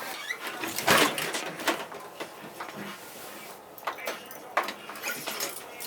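Irregular mechanical clicks and knocks from handling a 50cc scooter that will not start; no engine running.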